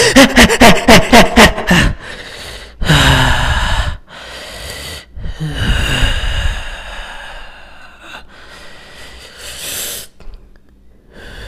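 A man laughing in quick, loud bursts for about a second and a half, then heavy breaths and gasps. A short hiss comes near the end.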